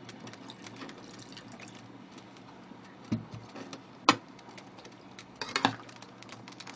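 Water poured from a stainless-steel kettle into a pot of soup to top it up. About four seconds in there is one sharp metal knock, and near the end a quick run of clinks from a utensil against the pot.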